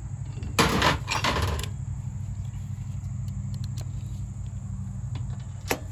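Loose steel bolts and hardware clattering briefly on a sheet-metal tray about half a second in, with one sharp click near the end, over a steady low hum.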